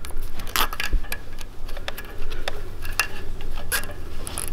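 Irregular small clicks and rustles of a tiny plastic zip tie being handled, threaded and pulled tight around charging-coil wires.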